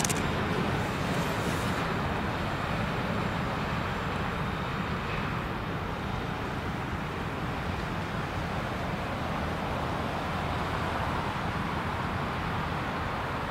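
Steady rolling noise of an empty freight train of covered hopper cars passing, easing slightly in level over the first few seconds.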